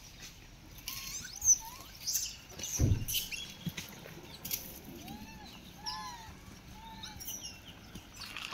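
A series of short, arching chirp-like animal calls, several in a row about five to seven and a half seconds in, with scattered rustles and clicks around them and a single low thump about three seconds in.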